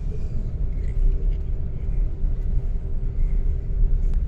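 Tour coach driving, heard from inside the cabin: steady low engine and road rumble with a faint steady whine.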